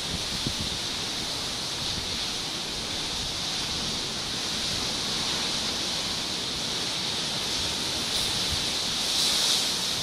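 Steady rushing wash of ocean surf breaking on rocks at the foot of a sea cliff, swelling briefly near the end, with a few faint bumps of wind on the microphone.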